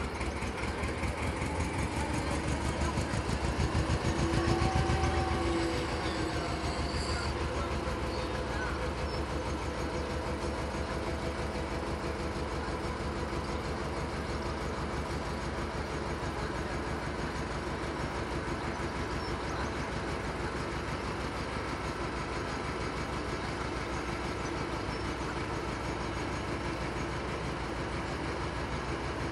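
Narrowboat's National 2DM two-cylinder diesel engine running steadily with an even beat, briefly louder about four seconds in.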